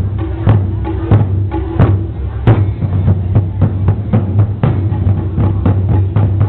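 Taiko drums being played: a run of sharp strikes, several a second, some with a dry wooden click.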